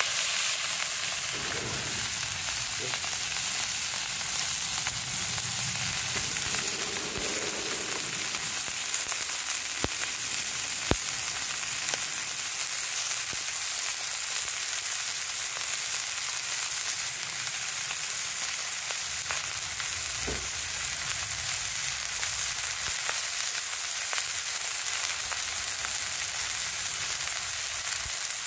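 Burger patties frying in a Trangia camp-stove pan: a steady sizzle, with a few faint ticks.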